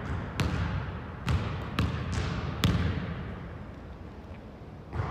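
Basketball bouncing on a hardwood gym floor: several sharp bounces at uneven spacing, each ringing on in the echo of a large, empty hall.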